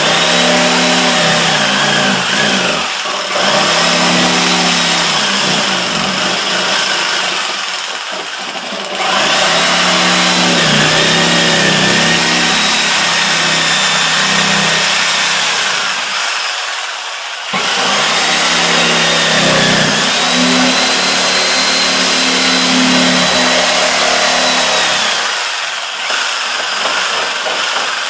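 Corded reciprocating saw cutting through drywall. It runs steadily in four long stretches with short pauses between them, then goes quieter near the end.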